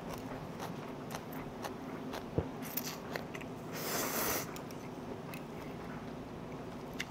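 A person chewing and biting kimchi, with many small crunchy mouth clicks. There is a sharp tap about two and a half seconds in and a brief louder rush of noise around four seconds in.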